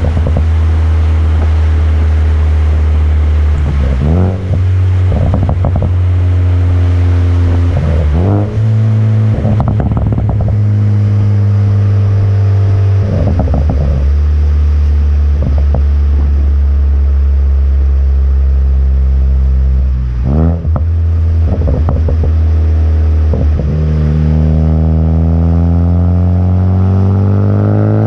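Car exhaust (AWE Track Edition system on a stock downpipe) droning steadily under way, shifting pitch at each gear change. Several bursts of crackles and pops come on lift-off, from a tune with progressive crackles. Near the end the exhaust note rises steadily as the car accelerates.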